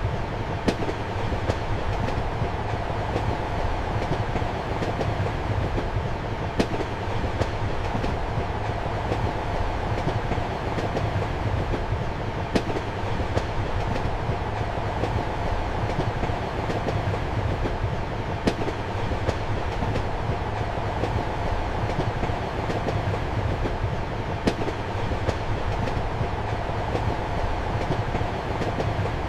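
Steady rumble of a passenger train running, heard from inside a compartment, with sharp clacks of the wheels every few seconds.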